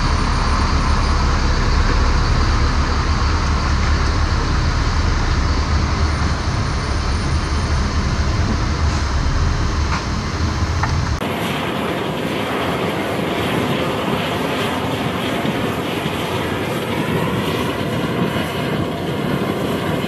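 Steady noise of a C-17 Globemaster III and its loading: a deep rumble of engines in the cargo hold while a HIMARS launcher truck rolls aboard. About eleven seconds in, the sound switches abruptly to a higher, hissing jet-engine whine.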